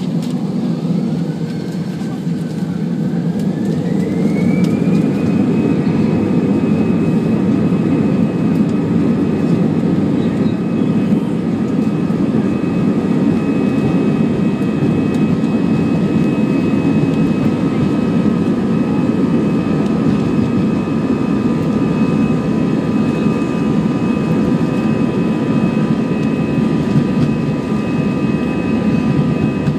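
Airbus A320's jet engines spooling up to takeoff thrust, heard from a window seat over the wing inside the cabin: a whine rises in pitch and the noise grows louder over the first five seconds or so, then settles into a steady loud roar with a high-pitched whine.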